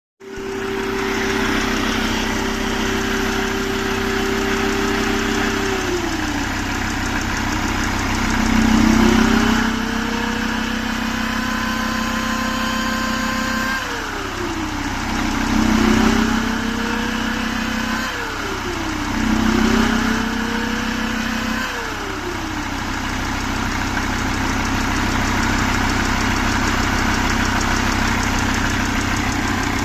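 Mercedes-Benz OM647 2.7-litre five-cylinder diesel idling and revved three times. A whining tone climbs with each rev and sinks as the engine drops back to idle; this is the turbocharger noise that the owner points to.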